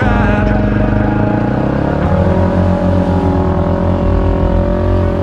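Dirt bike engine running under way, its note shifting about two seconds in.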